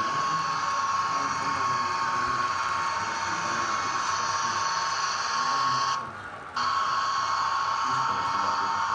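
Model trains running on the layout: a steady high-pitched whine from the locomotive motors and wheels on the track. The higher part of the sound drops out briefly about six seconds in.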